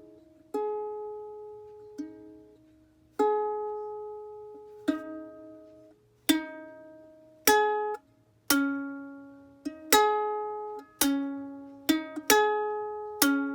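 Ukulele chords strummed slowly, one at a time, each left to ring and fade before the next. The strums come closer together and louder in the second half.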